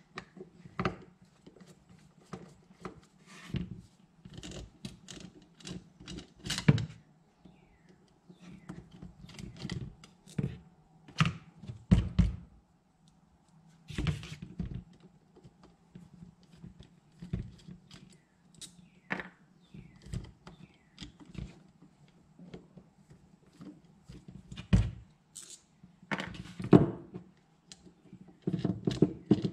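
Screwdriver working the float-bowl screws out of a Suzuki LT185 carburetor, with scattered clicks and knocks as metal parts and hand tools are handled and set down on the workbench. A steady low hum runs underneath.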